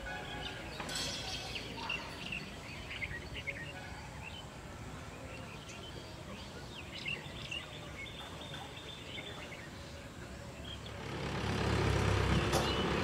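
Outdoor pondside ambience: small birds chirping in short, scattered calls over a low background rumble, which grows louder about eleven seconds in.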